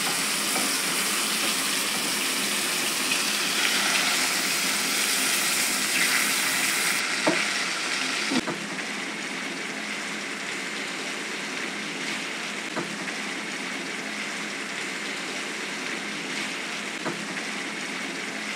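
King fish (neymeen) steaks frying in shallow oil in a nonstick pan: a steady sizzle, with a few sharp clicks of a steel spatula against the pan. About eight seconds in, the sizzle drops to a quieter, duller level.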